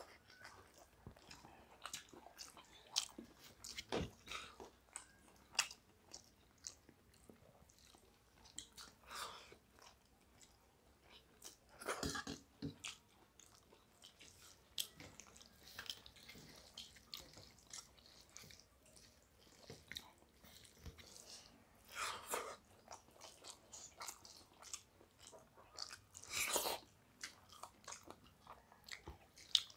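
Eating sounds of two people eating rice and curry by hand: faint chewing and mouth noises with many scattered short clicks, and a few longer, louder bursts about 12, 22 and 26 seconds in.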